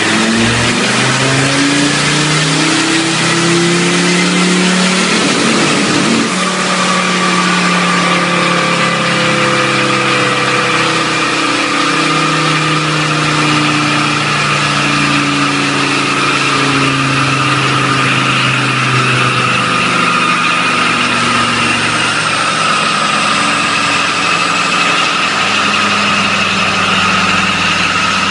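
Volkswagen 2.5-litre five-cylinder TDI diesel running hard under load: its pitch climbs for the first six seconds or so, changes sharply about six seconds in, then holds nearly steady. A high whine rises slowly throughout.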